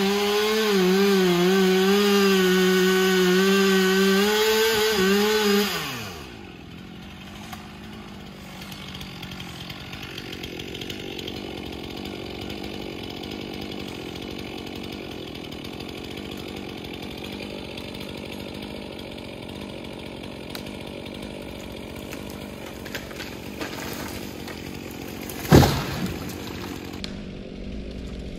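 Chainsaw held at full throttle for about six seconds, then let off, its pitch falling away. A quieter steady running noise follows. Near the end comes a single loud, sharp crack.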